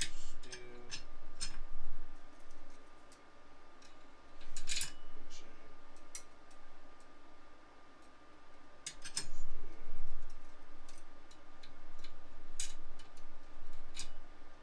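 Irregular light metallic clicks and clinks as clutch friction and steel plates are fitted into the clutch basket of a Honda CRF150R engine.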